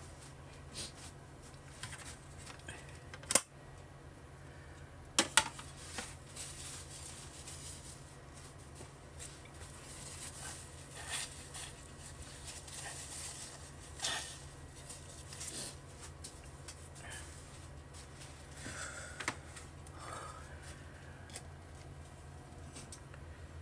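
Kitchen handling noises: a few sharp knocks and clicks in the first six seconds, then irregular light rustling and scraping, over a steady low hum.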